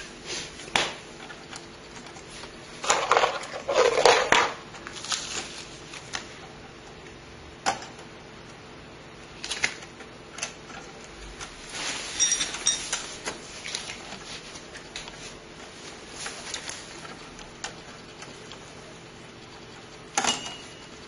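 Hands handling computer parts and packaging: scattered small clicks, taps and rustles, with louder rustling about three to four seconds in and again around twelve seconds.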